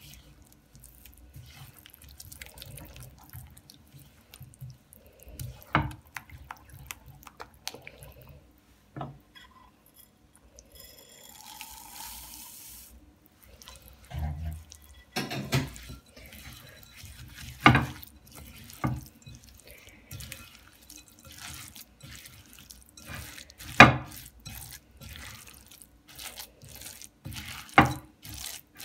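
Silicone spatula stirring a thick, wet paste of ground hazelnuts, butter and honey in a glass bowl: squelching and scraping, with several sharp knocks of the spatula against the glass.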